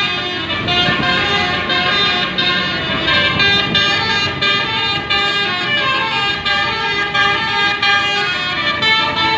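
Indonesian bus 'basuri' telolet musical air horn playing a tune: several horn tones sounding together, stepping quickly from note to note without a break, over a low rumble.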